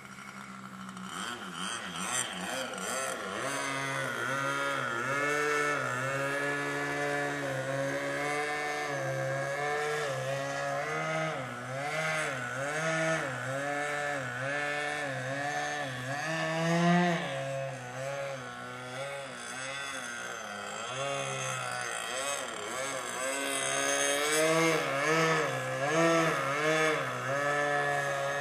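OS 55AX two-stroke glow engine with a tower muffler on a Primo 40 3D profile RC plane in flight, its pitch rising and falling again and again as the throttle is worked. It grows louder over the first few seconds.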